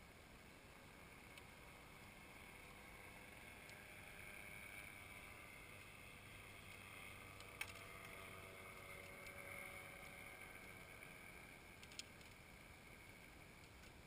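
Near silence with a faint engine-like hum that swells and fades in the middle, and two small sharp clicks, about eight and twelve seconds in.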